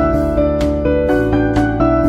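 Instrumental background music: a melody of held notes changing every fraction of a second.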